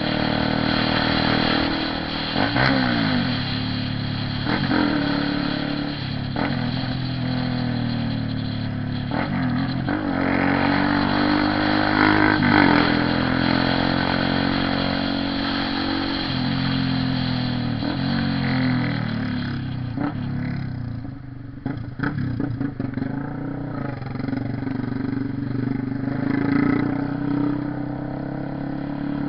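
Honda CB 300R's single-cylinder engine under way, its exhaust note rising with the throttle and dropping at gear changes several times, then easing off briefly about two-thirds of the way through before pulling again.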